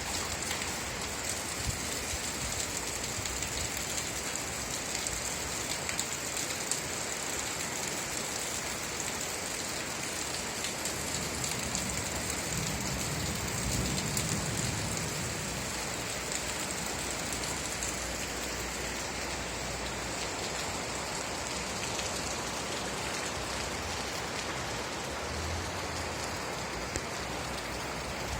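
Steady rain falling, a dense even hiss of drops with fine pattering ticks. A low rumble swells briefly about halfway through.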